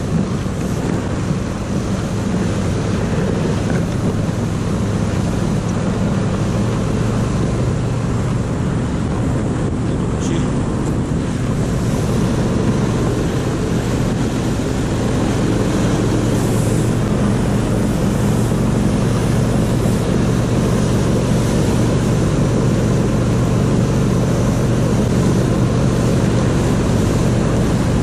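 Motorized snow tow (motor-dog) engine running steadily under way, with a constant drone and some wind noise on the microphone.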